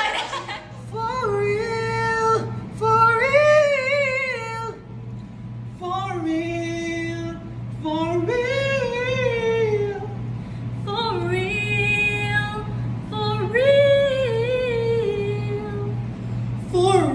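A voice singing a short melody in separate phrases of a few notes, with brief gaps between them, over a steady low beat pulsing about twice a second.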